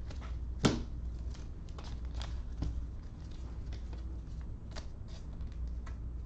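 Trading cards being slipped into plastic penny sleeves: scattered light clicks and plastic rustles, with one sharper tap a little under a second in, over a steady low hum.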